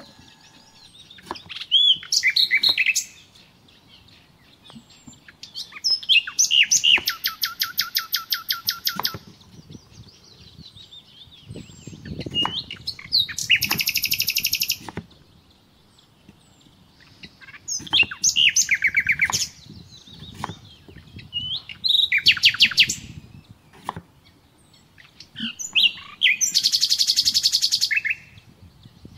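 A small songbird singing a loud, short song phrase every four seconds or so, each phrase running into a fast trill of rapidly repeated notes.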